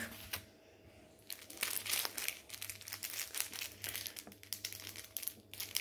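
Clear plastic zip-lock bag of diamond-painting drills crinkling and crackling as it is handled and worked open, starting about a second in.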